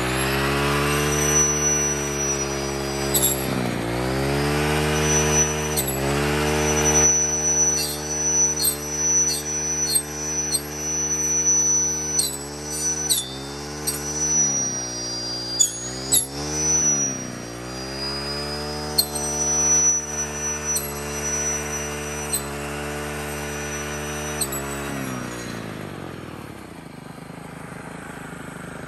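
Gas brush cutter running at high throttle while cutting tall weeds. Its engine note sags and recovers several times under load, with sharp ticks of stems striking the cutting head. Near the end the throttle is let off and the engine winds down.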